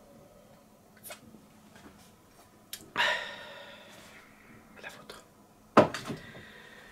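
A man drinking from a mug gives a loud, breathy exhale after a sip about three seconds in. Just before the end the mug is set down with a sharp knock.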